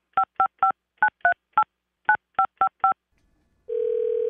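A touch-tone telephone dialing a number: ten short two-note beeps in groups of three, three and four. A steady ringing tone then starts on the line a little over three and a half seconds in.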